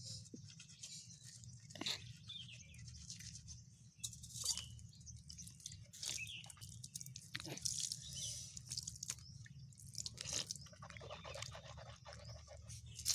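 Teeth being brushed with a toothbrush: irregular scrubbing strokes, over a faint steady low hum.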